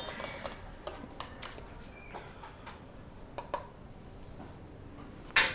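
Fork clinking and scraping in a stainless steel mixing bowl as flour is stirred into cake batter: faint scattered clicks, with a louder knock near the end.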